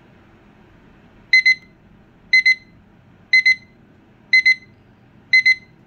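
XREXS large digital wall clock's built-in alarm speaker beeping as its countdown timer reaches zero: a pretty loud, high double beep repeating once a second, starting about a second in.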